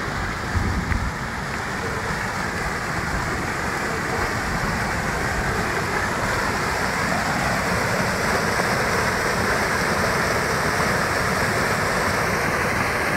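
Muddy, fast-flowing stream running bank-full and pouring over a small drop in its channel: a steady, loud rush of turbulent water that swells slightly a few seconds in.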